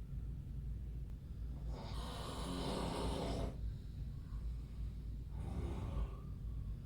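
A man snoring in his sleep: one long snore about two seconds in and a shorter one near the end, over a steady low hum.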